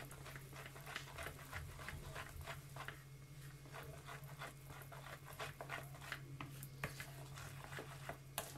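Hand whisk beating thick pancake batter in a bowl, stirring out the lumps: quick, irregular ticks and soft wet slaps of the whisk against the bowl, over a faint steady low hum.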